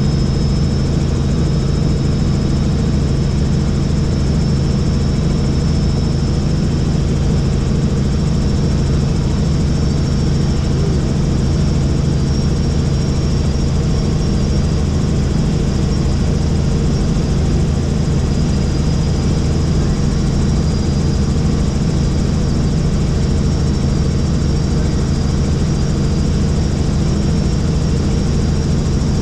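Helicopter in flight, rotor and turbine running at a steady drone with a thin high whine above it.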